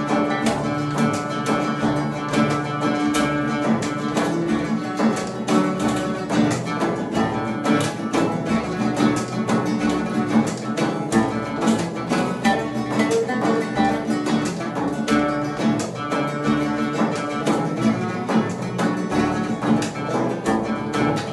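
Instrumental passage of Arabic music: a nylon-string classical guitar and an oud plucking a melody together, with a frame drum keeping the beat.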